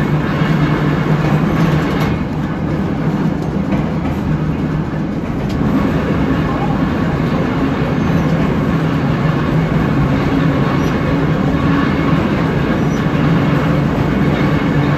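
Electric trolley car rolling through a long rail tunnel, heard from inside the car: a steady, loud rumble of wheels on the rails.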